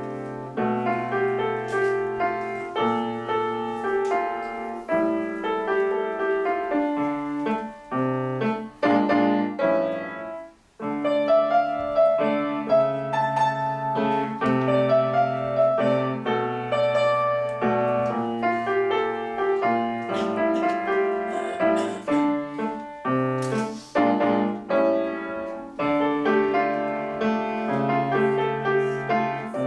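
Solo grand piano playing a continuous flow of notes, with a brief pause about ten seconds in before the playing resumes.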